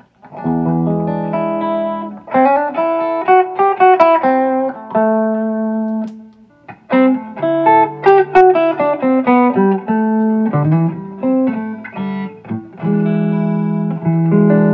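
FireFly FF338 semi-hollow electric guitar with rewound humbucker pickups being played: a ringing chord, then quick single-note runs and licks with a short pause in the middle, closing on another sustained chord near the end.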